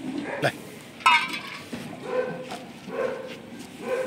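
Kittens mewing: a sharp, loud high cry just after a second in, then short cries repeating about every two thirds of a second.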